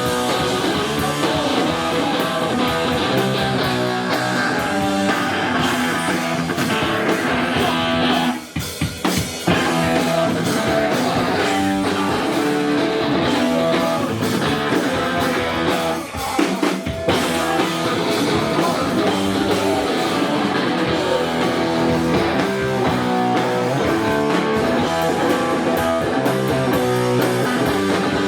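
Live rock band playing a song: electric guitars and drum kit. The band cuts out briefly twice, around eight seconds in and again around sixteen seconds in.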